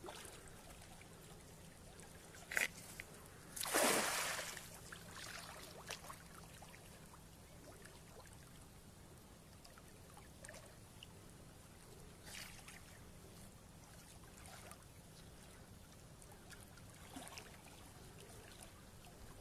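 A thrown fishing net splashing into calm river water about four seconds in, just after a short sharp knock. Afterwards only faint water sounds, with a couple of small splashes.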